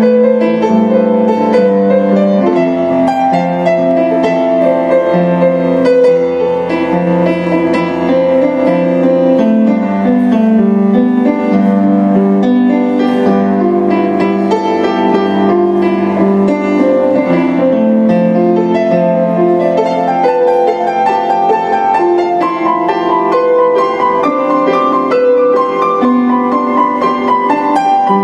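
Kawai grand piano played by hand: a continuous flowing passage of sustained notes and chords, the melody moving higher in the last third.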